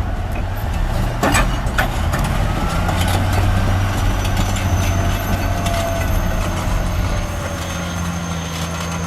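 Heavy equipment engine running steadily, with two sharp knocks about a second and a half in.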